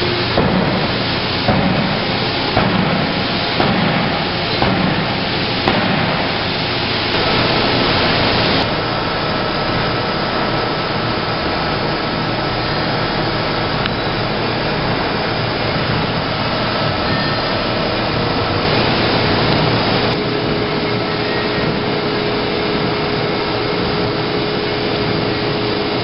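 Steady industrial machinery noise of a working factory, with irregular knocks and clanks about once a second for the first eight seconds or so, then an even mechanical drone.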